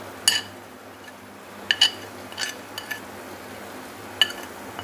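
Steel spoon clinking against a ceramic plate as powdered spices are scraped off it: about seven short, ringing clinks spread over a few seconds.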